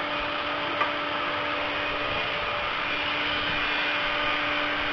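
Steady whir of workshop machinery with a constant hum, and a faint click about a second in.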